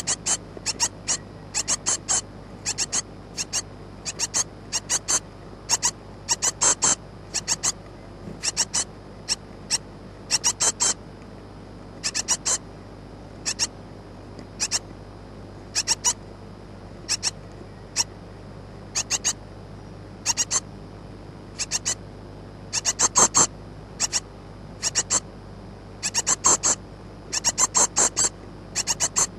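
Great tit nestlings giving high-pitched begging calls: short cheeps in quick clusters of two to six, a cluster every second or so, over a steady low hum.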